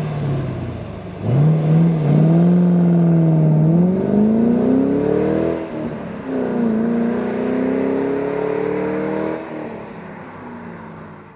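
2005 Ford Mustang GT's 4.6-litre V8 through a Magnaflow cat-back exhaust with race mufflers, accelerating hard. The note climbs, drops at a gear shift about six seconds in, climbs again, then fades as the car pulls away into the distance.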